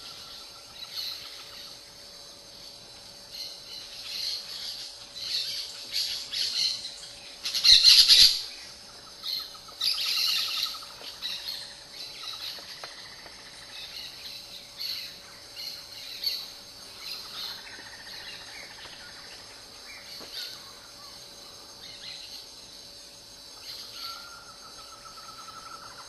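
Wild birds chirping and calling, with a loud sharp call about eight seconds in and another about ten seconds in. A rapid trill sounds near the start and again near the end.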